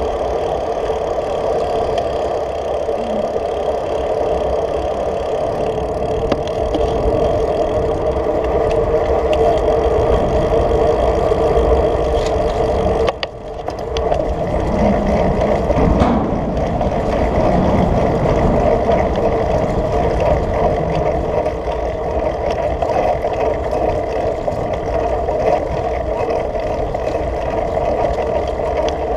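Wind rushing over the microphone of a handlebar-mounted camera on a moving road bike, a steady loud noise with tyre rumble underneath. It drops away briefly about halfway through.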